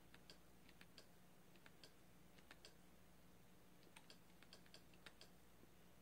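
Faint, irregular clicks of buttons being pressed, singly and in quick runs, with a pause of about a second just past the middle, over near-silent room hiss.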